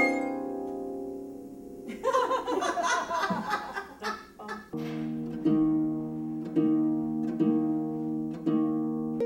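Chamber music: a held chord dies away, a brief flurry of notes follows, then a harp plays a repeating figure of plucked notes, about one a second, that ring on under one another.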